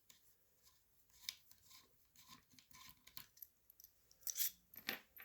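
Screwdriver working the grip screws out of a MILSIG M17 G3 receiver: small metal clicks and scraping of the tool and screws, with a few louder clicks near the end.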